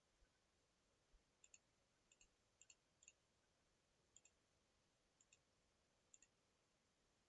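Faint computer mouse clicks, most in quick pairs, about seven of them spread from about a second in, against near silence.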